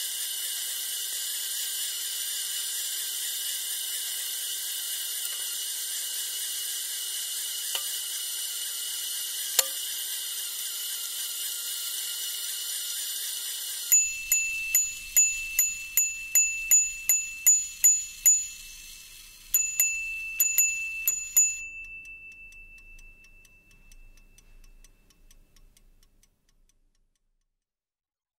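A steady whirring hiss stops abruptly. Then the pocket watch's small bells are struck about ten times in quick succession and, after a short pause, four or five more times, each strike a clear ringing tone that dies away at the end.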